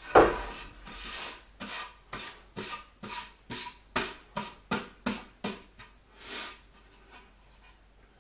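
A sharp knock of a wooden board at the start, then about a dozen short rasping strokes, two or three a second, of a hand working the edge of a wooden panel; they stop about six and a half seconds in.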